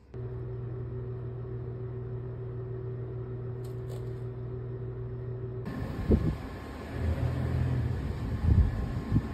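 A steady low mechanical hum with two brief clicks near the middle. About six seconds in, it gives way abruptly to a louder outdoor rumble with a few low thumps.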